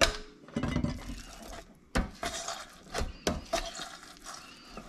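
Chinois and its pusher at work straining pepper mash: a series of sharp knocks and clinks, roughly one a second, with scraping between as the pusher works against the sieve.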